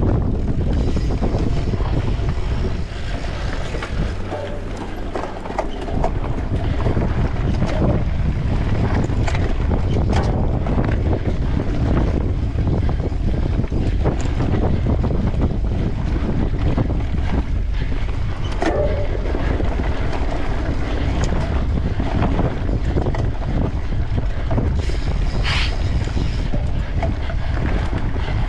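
Wind buffeting the microphone of a camera riding on a mountain bike at speed, with the bike rattling and knocking over bumps on the trail.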